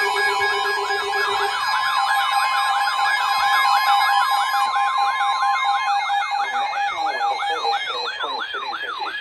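Weather alert radio alarms sounding together: a fast siren-like yelp rising and falling about four times a second, over several steady alarm tones that cut off one after another, the last near the end. This signals a new severe thunderstorm warning.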